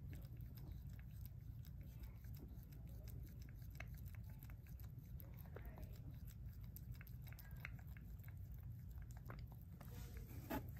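Faint wet licking and chewing clicks: a toy poodle mother mouthing and licking at her newborn puppy's amniotic sac. They come as many small irregular clicks over a low steady rumble.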